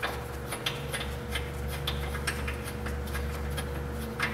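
Ratchet wrench clicking in irregular runs of light, sharp clicks, a few a second, as a broken bolt is worked loose through a washer welded onto it, over a steady low hum.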